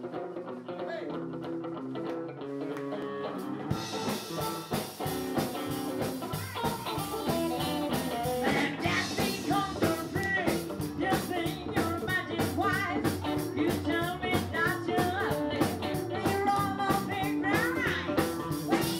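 Live rockabilly band: the song opens with guitar, then about four seconds in the drums and the rest of the band come in. A woman starts singing a few seconds later.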